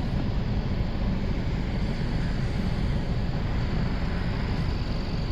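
Steady engine and road noise of a car on the move.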